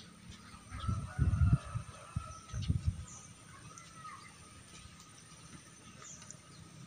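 Birds chirping and calling faintly in the background, with two low muffled bumps on the microphone, about a second in and again near three seconds.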